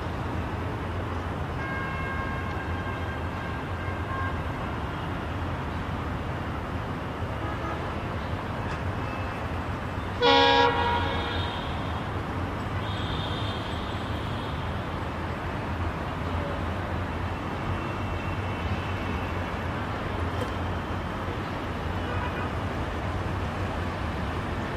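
Diesel passenger locomotive approaching slowly with a steady low engine rumble. About ten seconds in, it gives one short, loud horn blast.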